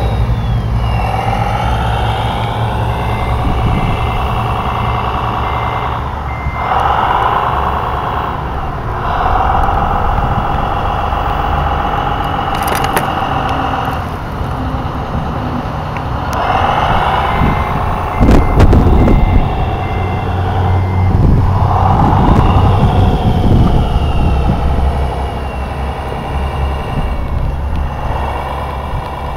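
Simulated diesel engine sound from 1:14 RC construction-model sound modules, revving up and settling back several times, with an electronic reversing beeper sounding twice in stretches of a few seconds. A burst of heavy knocks and rumbling comes about two-thirds of the way through.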